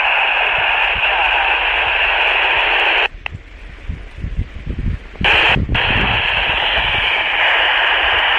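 Baofeng UV-5R handheld radio's speaker hissing with FM receiver static while tuned to the AO-85 amateur satellite downlink at 145.980 MHz. The hiss cuts out for about two seconds around the middle, leaving wind rumble on the microphone, then returns after a short crackle.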